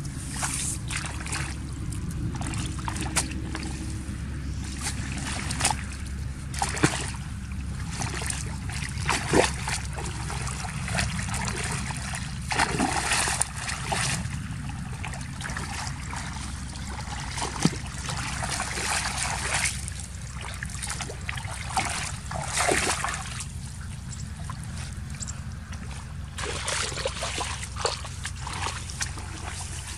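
Shallow muddy water and wet mud splashing and sloshing at irregular moments as a hoe digs in a flooded ditch and feet wade through it, with scattered knocks, over a steady low rumble.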